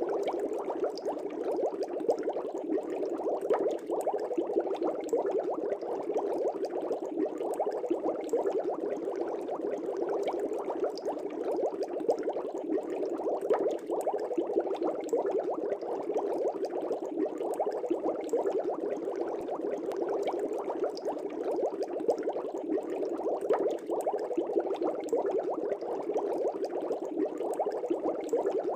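Aquarium air bubbles rising and breaking at the water surface, a dense, steady bubbling with many small pops.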